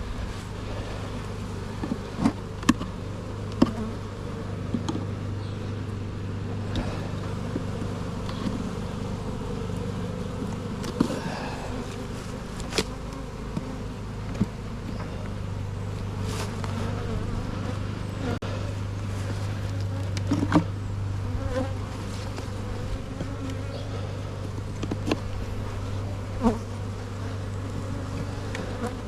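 Honeybees buzzing in a steady, continuous hum around an opened hive, with scattered sharp clicks and knocks.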